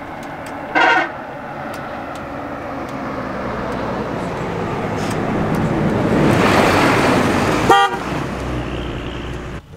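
Two short car-horn toots, about a second in and near the end, with a rushing noise swelling between them.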